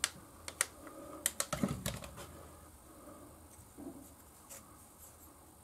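Small metal engine parts being handled on a workbench: a quick run of light clicks and taps over the first two seconds or so, then a few fainter ones.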